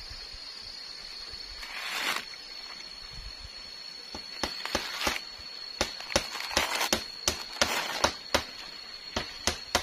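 Sharp, irregular knocks and clicks of people working on a bamboo treehouse frame, coming quickly from about four seconds in, two or three a second. A steady high-pitched whine sits beneath them.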